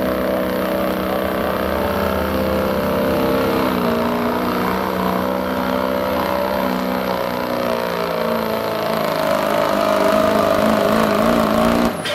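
Ford Super Duty 4x4 pickup's turbocharged diesel engine at full throttle, pulling a weight-transfer sled. Its note holds high and steady, dips about four seconds in, then wavers up and down as the truck labours. The sound cuts off suddenly near the end.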